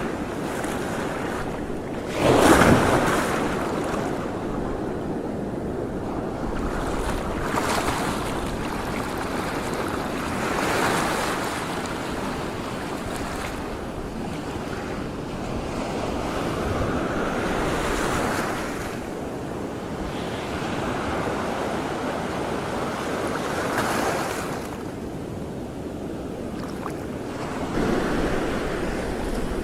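Water waves washing in swells every few seconds, with wind buffeting the microphone; the strongest surge comes about two and a half seconds in.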